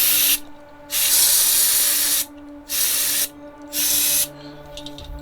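Aerosol carburetor cleaner sprayed in four short hissing bursts, the second lasting over a second, blowing out the passages of a small-engine carburetor.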